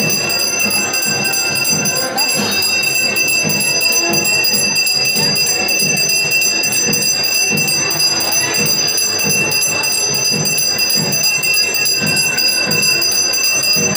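A hand-held puja bell (ghanta) ringing continuously during an evening aarti, with steady high ringing tones. A low pulsing beat, about two a second, runs underneath.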